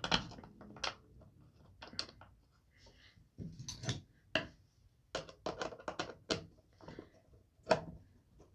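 Irregular clicks and knocks of hard plastic parts and a screwdriver being handled as a cheek rest is fitted back onto an Umarex Gauntlet air rifle's synthetic buttstock, with a quick run of clicks about five to six and a half seconds in.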